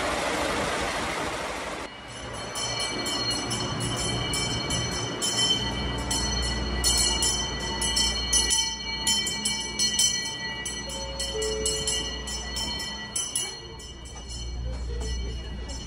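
The rumble of a train moving past a station platform, then a brass hand bell rung rapidly and over and over for about ten seconds, clear ringing tones over a low steady hum: a station departure bell.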